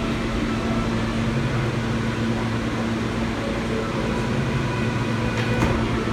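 New York City subway train humming steadily at the platform, with a faint clank near the end.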